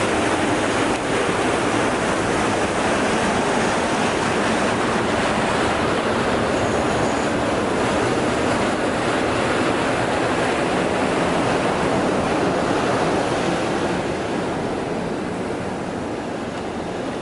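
Steady rushing, churning water noise from an activated-sludge sequencing batch reactor tank being aerated. It eases slightly about fourteen seconds in.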